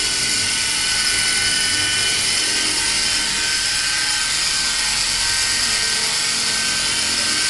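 Electric motors and spinning rotors of an E-Sky Honey Bee fixed-pitch RC helicopter in flight: a steady high whine over a buzzing hiss, its pitch shifting slightly as the motor speed changes to hold the hover.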